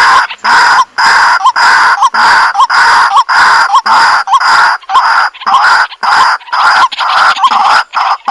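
White-breasted waterhen calling, a loud, harsh, repeated 'kru-wak' note about twice a second in a steady, unbroken series.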